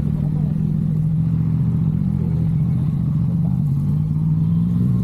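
Yamaha MT-09's three-cylinder engine running at a steady pitch while riding.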